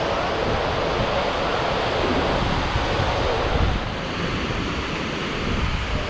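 Steady rushing roar of a 90-metre waterfall close by, with wind rumbling on the microphone.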